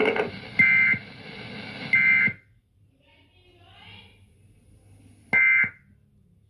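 Emergency Alert System end-of-message data bursts: short, harsh two-tone digital screeches, each about half a second long. They come about half a second in, again about two seconds in, again near five and a half seconds, and a fourth begins right at the end.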